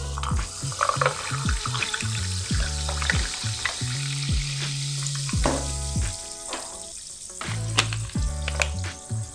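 Carbonated water poured from a bottle over ice and cola syrup in a glass, fizzing and crackling as the bubbles rise. Background music with a steady beat plays underneath.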